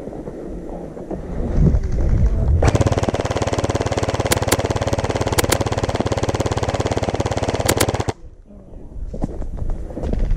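Gel blaster firing full auto in one long, rapid, continuous burst. It starts suddenly about two and a half seconds in and cuts off about five seconds later.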